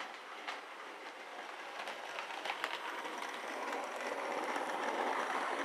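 Model Class 57 locomotive running along model railway track: a steady rattling hiss of wheels and small motor with scattered faint clicks, slowly growing louder as it comes nearer.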